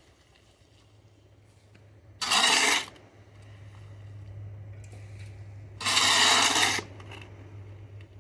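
Steel shovel blade scraping across a concrete slab twice, each stroke under a second long, pushing off packed dirt.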